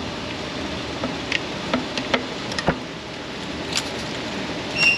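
A trim tool prying and working a Toyota 1GR-FE engine's camshaft timing oil control solenoid, still held by its O-rings, out of its bore. The tool clicks and taps against metal and plastic at irregular moments, with one heavier knock about halfway through, over a steady background hiss.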